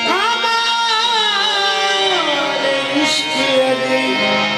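Qawwali music: a singer holds a long wordless vocal line over steady harmonium chords, sliding up at the start and falling away about two seconds in.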